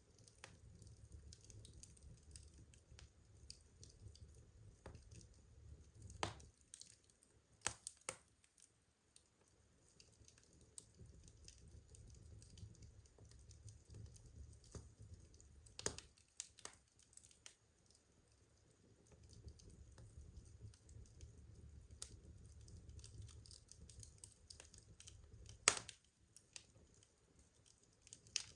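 Burning wood crackling: irregular small snaps and pops, the sharpest one near the end, over a faint low rumble.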